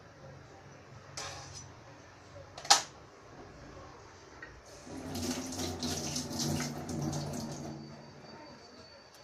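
Two knocks, the second a sharp clack, as the knife is set down on a plastic cutting board. Then a kitchen tap runs into a stainless steel sink for about three seconds, splashing over hands being rinsed, and is turned off.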